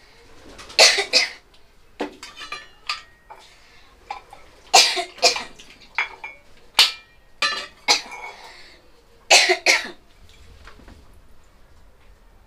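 A person coughing in several short fits over about ten seconds, the coughs sudden and harsh.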